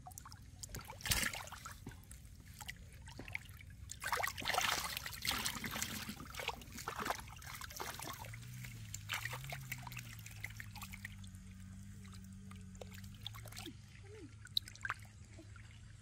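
A large fish thrashing in shallow muddy water, splashing in bursts, with a sharp splash about a second in and the heaviest splashing between about four and seven seconds.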